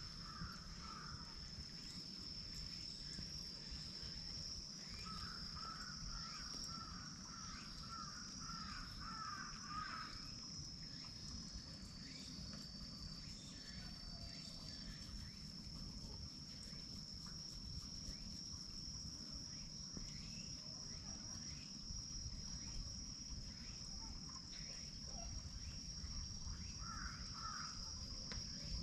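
A steady high-pitched insect drone. Over it a bird calls in quick runs of short notes, first between about five and ten seconds in and again briefly near the end.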